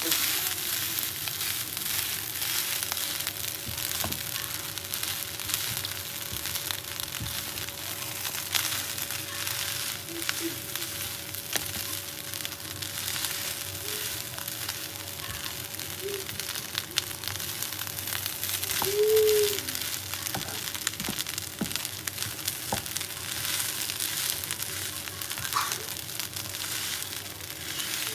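Fried rice with celery sizzling in a frying pan as it is stirred and turned with a wooden spatula. A steady hiss, with short clicks and scrapes of the spatula against the pan.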